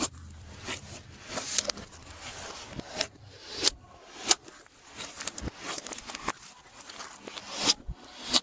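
Hands working glossy slime: irregular sticky clicks, pops and crackles, several a second.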